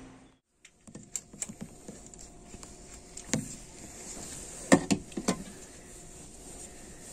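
Inside a 683 series express train car: a steady low hum with scattered small clicks and a few sharp knocks, the loudest a little past halfway.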